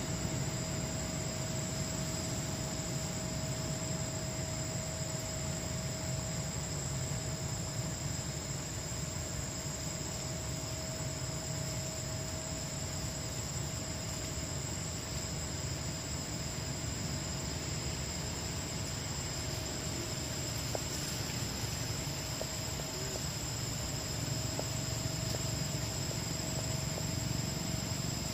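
Steady insect chorus, a few unchanging high whines that hold without a break, over a low steady rumble.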